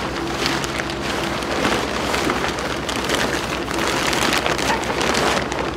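Large plastic bag crinkling and rustling as several hands gather and pull at it, with a steady low hum underneath.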